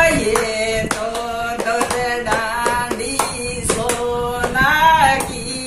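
A woman singing a Marwari wedding song (banna geet), keeping time with repeated hand claps.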